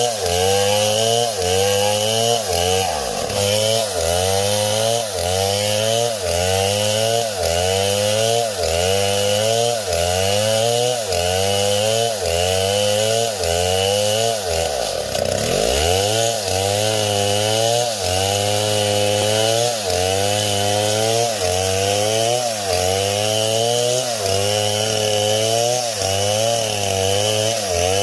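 Chainsaw running and cutting, its engine pitch rising and falling in a regular cycle about once a second, with two brief deeper drops in pitch, about three seconds in and around the middle.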